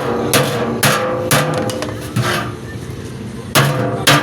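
Hammer blows on metal, roughly two a second, each with a short ringing tail; they pause for about a second near the end, then resume. Background music plays underneath.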